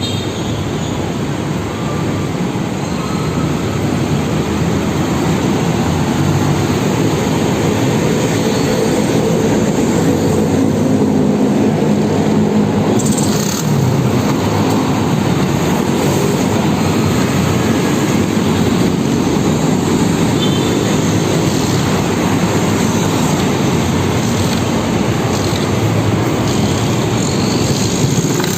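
A vehicle engine running steadily, a wavering drone under a constant noisy hum.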